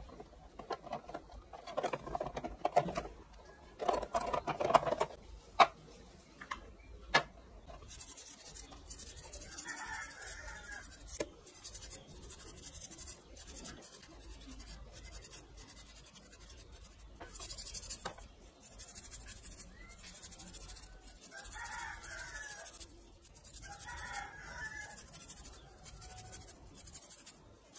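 Rubbing and scraping strokes on motorcycle engine parts, repeated in a long run, with a few sharp clicks and knocks in the first seven seconds.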